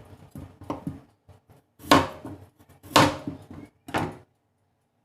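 A run of knocks and clatters of kitchen utensils and cookware, the two loudest about two and three seconds in, stopping after about four seconds.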